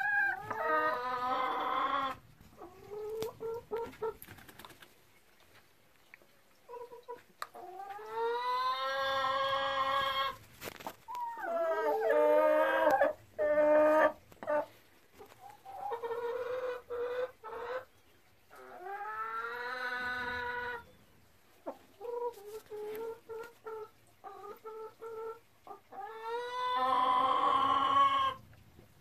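Domestic hens calling: about six long, drawn-out calls of a second or two each, with runs of short clucks between them.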